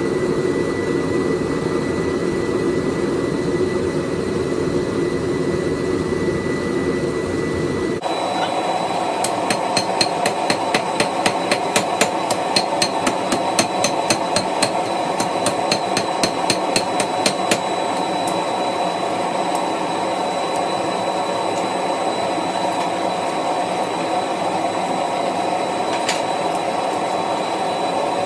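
A steady forge roar, then, after an abrupt change about eight seconds in, a run of hammer blows on hot steel at the anvil. The blows come about three to four a second for some eight seconds, with one more blow near the end. The steel has been reheated and is being hammered to open and shape the ends of a forged cross.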